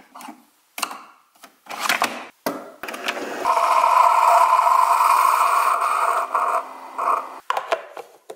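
Single-serve pod coffee brewer: a few clicks and knocks as it is closed and started, then a steady hiss of the machine pumping and coffee streaming into a mug for about four seconds before it stops. A couple of clicks near the end as a lid is pressed onto the mug.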